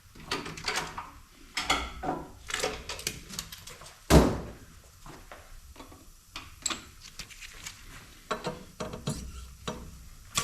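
Irregular metal clicks, clanks and knocks of tools and fixture parts being handled while setting up a cylinder head on a machine, with one heavy thunk about four seconds in.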